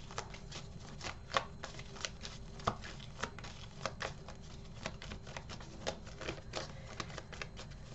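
A deck of tarot cards being shuffled by hand: a steady run of soft, irregular clicks and flicks, a few a second, as the cards slide and tap against each other.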